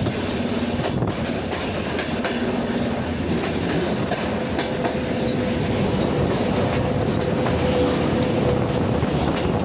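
Freight train wagons rolling past close by, their wheels clattering over the rail joints. A thin steady squeal joins in about halfway through.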